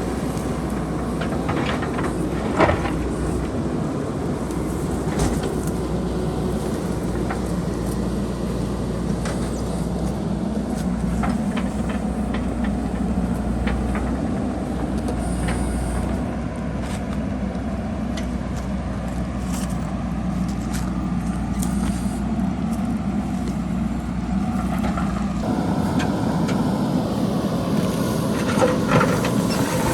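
JCB backhoe loader's diesel engine running steadily under load while rocks and boulders clatter and knock down the hillside. The sound shifts about 25 seconds in.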